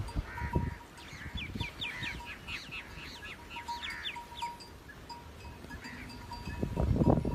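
A bird chirping in a quick run of short calls, about three or four a second, that stops after a few seconds. Underneath is low background rumble and a faint steady high tone that comes and goes.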